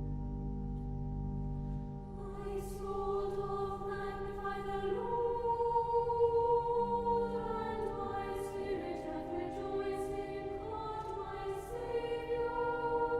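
A choir singing with sustained notes, entering about two seconds in after a held instrumental chord with deep bass.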